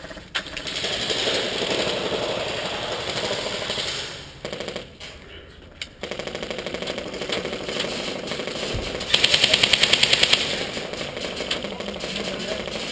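Airsoft electric guns firing on full auto in rapid bursts. The loudest burst, about a second and a half long at about a dozen shots a second, comes about nine seconds in.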